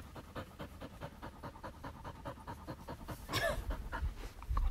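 A dog panting quickly and evenly close by, winded after fetching a ball, with a brief higher-pitched sound about three and a half seconds in and a low bump near the end.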